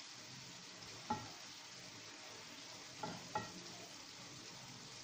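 Zucchini, peppers and tomatoes sizzling in a frying pan over medium-high heat as the excess moisture cooks off. A utensil stirs them and clinks against the pan about a second in and twice near three seconds.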